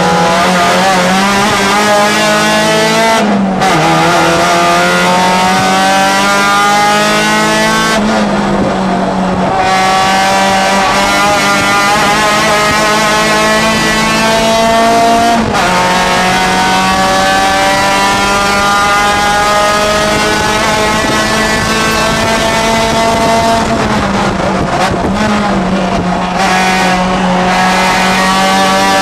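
Honda race car's four-cylinder engine heard from inside the cockpit under hard acceleration. The pitch climbs steadily and falls sharply at gear changes about 3, 8 and 15 seconds in. It dips and wavers for a couple of seconds near the end as the car slows for a corner.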